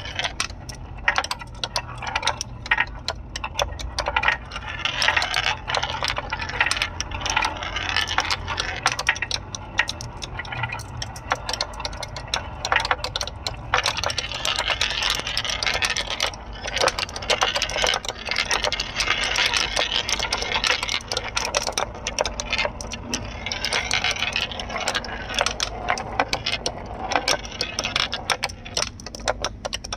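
Many marbles rolling and clattering down a homemade marble run: a steady rolling rush, thick with rapid clicks as the marbles knock against each other and the track.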